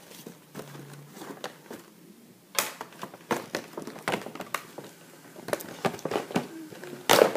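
A cardboard doll box with a plastic window being handled and turned over: irregular crinkles, taps and knocks of the packaging, the loudest knock just before the end.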